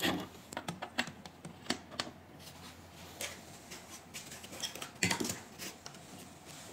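Small clicks, knocks and rustles of handle cables and their round metal multi-pin plugs being handled and pushed into sockets on the back of a cavitation beauty machine. A louder clatter comes at the start and again about five seconds in.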